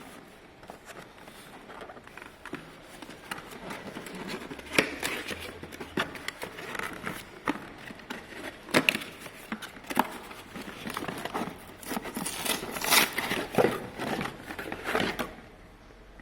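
Hands handling packaging and parts: crinkling and rustling of plastic wrapping, with scattered sharp clicks and knocks, busiest a few seconds before the end.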